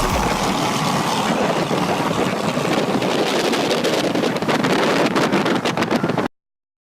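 Wind buffeting the microphone over the rushing noise of a boat under way on the water, cutting off suddenly about six seconds in.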